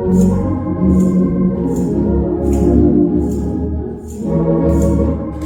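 Church musical selection: instrumental music carried by an organ over a bass line, with a short high percussion hit on each beat, a little under once a second.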